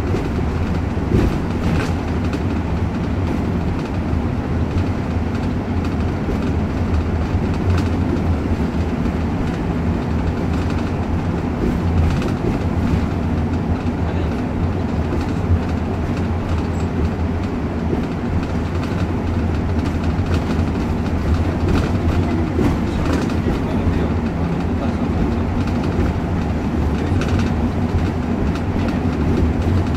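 Steady low rumble of a bus's engine and tyres heard inside the moving coach, with a few faint clicks and rattles.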